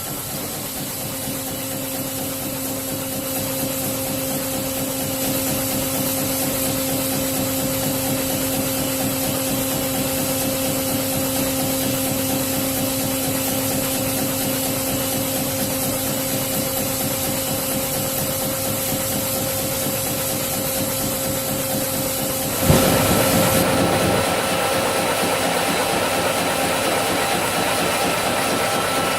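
Full-automatic two-ram baler running, its hydraulic power unit giving a steady hum with a high whine. About 23 seconds in there is a sharp knock and a short rush of noise, after which the low hum drops away and a different steady machine sound carries on.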